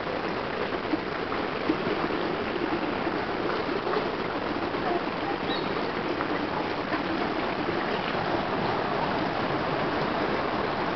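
Steady rushing noise of running water, even throughout, with a faint short high chirp about halfway through.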